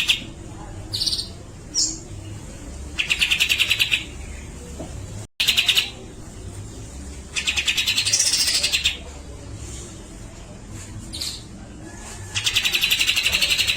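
Cucak jenggot (grey-cheeked bulbul) calling in its rapid rattling chatter: four bursts of fast, even clicking notes, each about a second or more long. A few short, high single notes fall between the bursts.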